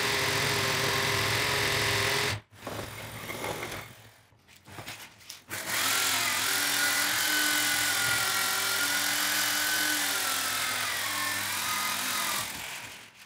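Metabo electric drill used as a lathe, its motor running steadily as it spins a wooden handle against a cutter and then against sandpaper held to the turning wood. The sound cuts off sharply about two and a half seconds in and stays quieter and broken for about three seconds before the drill runs steadily again, fading out near the end.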